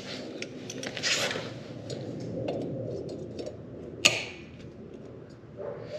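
Hand-tool handling while fitting a cotter pin to a motorcycle foot peg mount: channel-lock pliers picked up and worked, with light rustling and small clicks, a swish about a second in and one sharp click about four seconds in.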